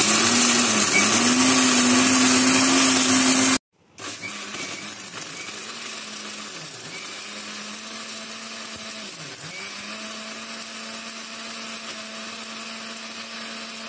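Electric mixer grinder (blender) running, grinding paan leaves, ice cream and crushed ice into a drink. For the first few seconds it is loud and harsh as the ice is crushed. It then breaks off briefly and comes back as a quieter, steady whir whose pitch dips a few times as the load catches the blades.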